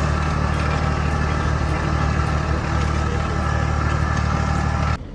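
An engine running steadily, as if under load, while potatoes are dug up; it cuts off abruptly near the end.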